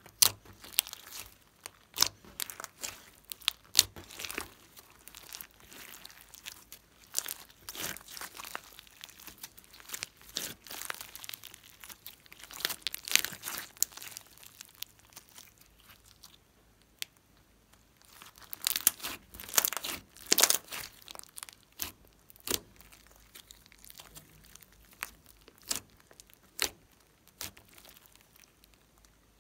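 Glossy slime being kneaded, folded and stretched by hand, giving sticky crackling and popping clicks in irregular clusters, with a short lull a little past halfway and the densest crackling just after it.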